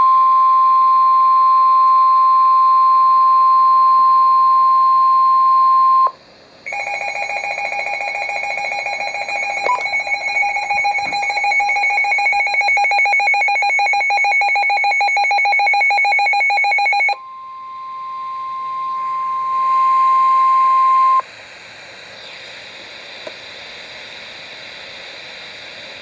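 NOAA Weather Radio 1050 Hz warning alarm tone, a steady loud single-pitch tone, marking a severe thunderstorm warning. About six seconds in it gives way to a rapidly pulsing electronic alert beep for about ten seconds. The steady tone then returns for a few seconds and drops to a low radio hiss.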